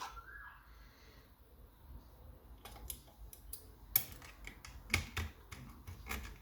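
Small metal clicks and taps of homemade lock-picking tools going into a lever mortice lock and working in it. After a quiet start they come irregularly, a few sharper clicks standing out.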